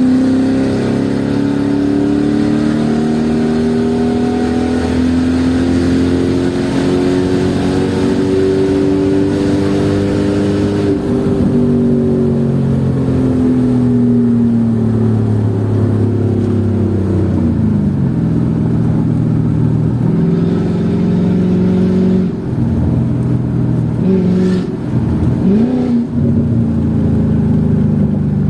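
Mercedes E55 AMG's supercharged V8 through a straight-piped exhaust (main cats kept; secondary cats, resonator and muffler deleted), heard from inside the car. The revs climb steadily for about ten seconds under acceleration, then fall away as the throttle eases, with a few quick dips and rises in engine pitch near the end.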